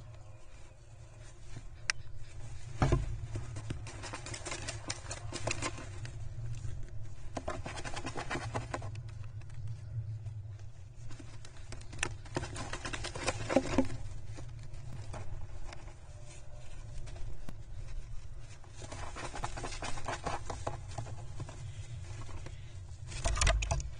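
Jackdaws scratching and rustling nest material inside a nest box, in several bouts of dense scrabbling and clicking. There are low thumps about three seconds in and near the end.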